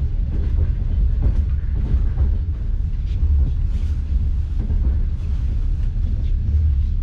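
Moving passenger train heard from inside the carriage: a steady low rumble of the wheels on the rails, with light irregular knocks over it.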